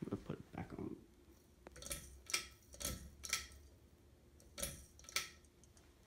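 Harbor Breeze Coastal Creek ceiling fan's pull-chain switch being worked: three pulls, each giving a pair of sharp clicks about half a second apart.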